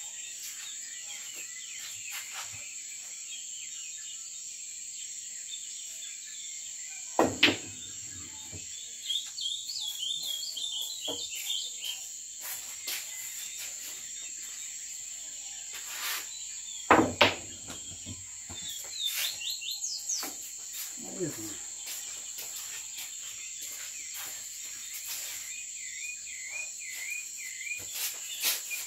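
Pool balls knocking on a pool table: two sharp double clacks, one about seven seconds in and one about seventeen seconds in. Between them runs a steady high chirring of night insects, with short bird chirps.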